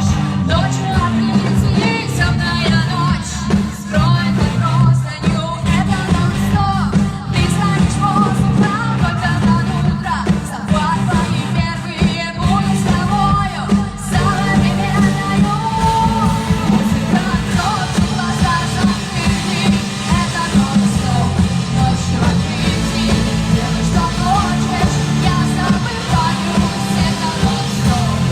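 Pop song by a vocal-instrumental band: a singer over guitars and drums with a heavy, steady bass line. The upper range grows fuller about halfway through.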